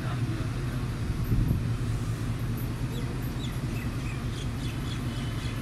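ZCU-20 diesel-electric locomotive's engine idling with a steady low hum at the platform.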